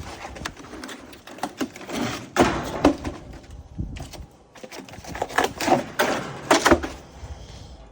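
Irregular knocks, scrapes and clatter, loudest in a cluster about two and a half seconds in and again between about five and seven seconds.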